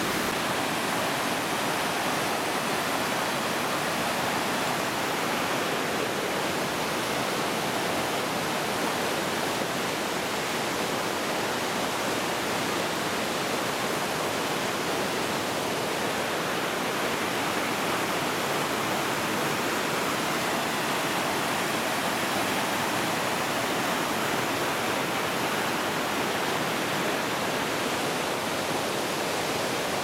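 Mountain stream rushing steadily over boulders, an even wash of water noise with no breaks.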